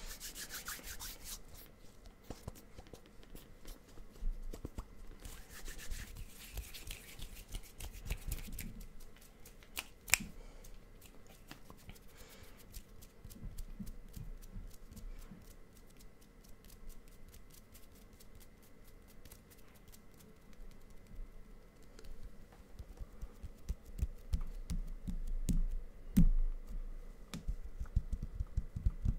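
Hands rubbing and brushing against each other right in front of a microphone: soft skin-on-skin swishes with scattered small finger clicks, getting louder and bassier near the end as the hands come closer to the mic.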